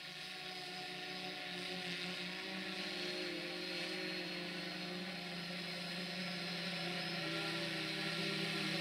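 A steady motor hum and whine over a hiss, slowly growing louder.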